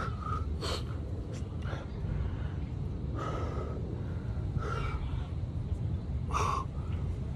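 A man breathing hard from the exertion of burpees, with short, sharp gasping breaths at uneven intervals.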